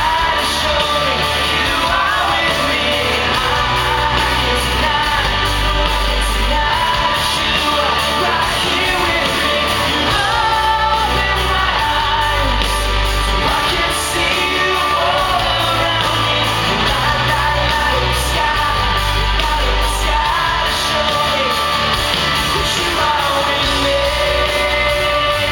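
A live pop-rock band playing loud with electric guitars, a male lead singer over the top, echoing through a large hall.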